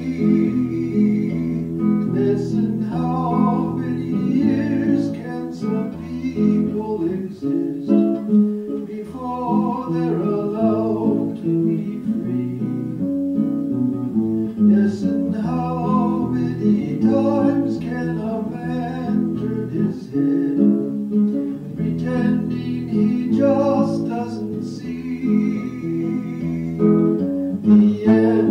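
Folk song with a strummed acoustic guitar and a singing voice.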